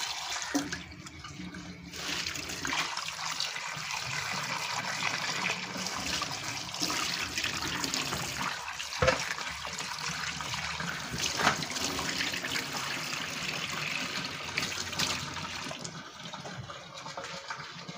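Tap water running into a stainless steel sink and splashing over a bowl of boiled pork pieces being rinsed by hand, starting about two seconds in, with a couple of sharp knocks along the way. The tap is shut off near the end.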